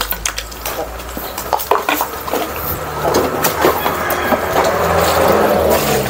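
Clattering knocks as a plastic basin and a bucket are handled. From about three seconds in, water is poured from the basin into a bucket of feed mash, a steady splashing that grows louder.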